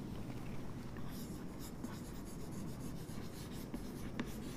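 Chalk scratching and tapping faintly on a chalkboard as a long line is drawn down the board and then a word is written.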